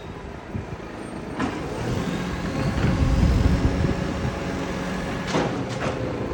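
Engine running steadily with an exhaust leak, getting louder about two seconds in. A few brief sharp sounds stand out over the running, about a second in and near the end.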